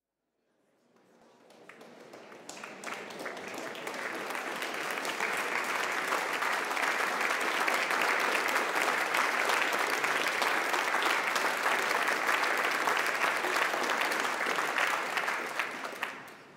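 Audience applauding: the clapping builds over the first few seconds, holds steady, and dies away near the end.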